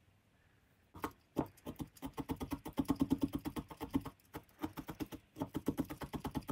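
Wool-felting needle stabbing rapidly and repeatedly through wool roving into felt fabric, a fast run of soft taps starting about a second in.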